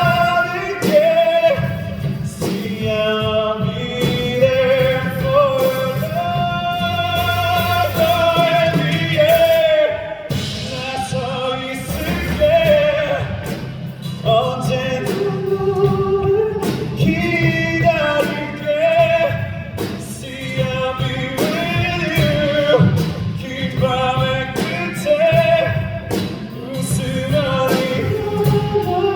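Male voice singing a ballad live over band accompaniment, the melody held in long notes with vibrato.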